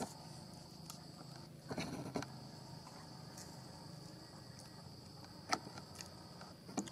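Faint outdoor ambience: a steady high insect drone, broken by a short rustle about two seconds in and a sharp click a little after five seconds.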